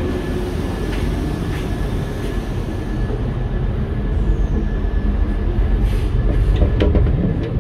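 Cabin noise inside an NMBS double-deck train coach: a steady low rumble with a faint steady high whine and a few light clicks. The rumble grows louder about six to seven seconds in.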